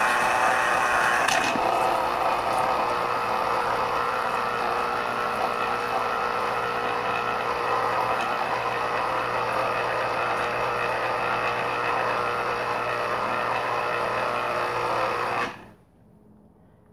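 Electric citrus juicer's motor running steadily as an orange half is pressed onto its spinning reamer cone. The motor stops suddenly near the end.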